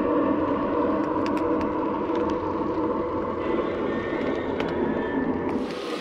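O-gauge Lionel passenger cars rolling on three-rail track: a steady metallic rumble and hum from the wheels, with scattered sharp clicks at the rail joints. Near the end it changes to a brighter rushing hiss.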